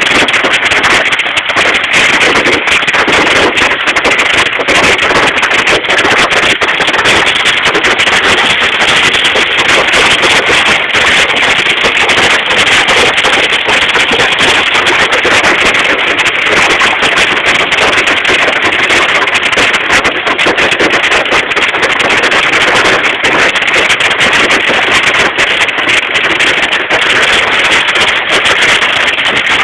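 Heavy hail pelting down without a break, a loud dense clatter of countless hailstone impacts.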